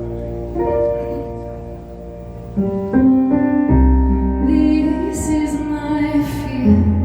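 Live music: a woman singing over sustained keyboard chords. It is soft at first and grows fuller and louder from about three seconds in, when a low bass comes in.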